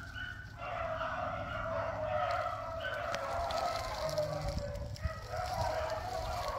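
A pack of beagles baying together, several drawn-out voices overlapping without a break from about half a second in.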